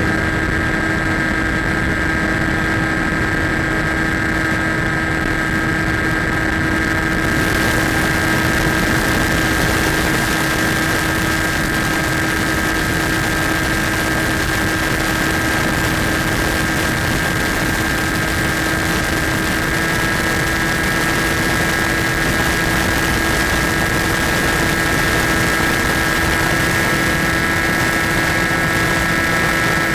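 Skywalker FPV plane's electric motor and propeller running at a steady whine, heard from on board, with wind hiss coming in about seven seconds in.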